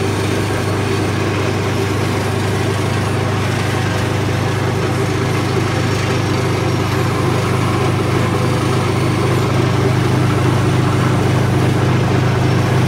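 Round stainless-steel vibrating flour sieve running, its vibrating motor giving a steady low hum as flour is shaken through the screen to separate fine from coarse.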